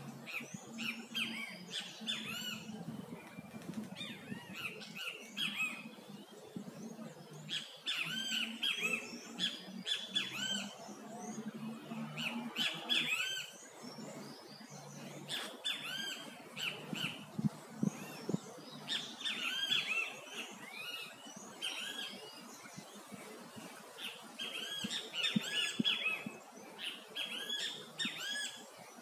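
Birds calling in repeated bouts of short, arching chirps, some bouts a few seconds long with pauses between.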